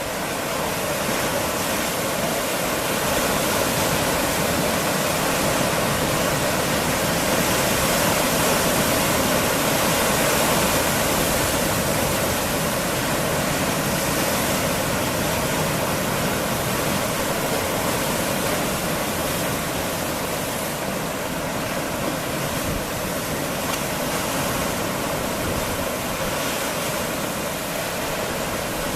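Sea waves washing against rocks: a steady rushing of water that swells a little in the first few seconds and eases slightly after about twenty seconds.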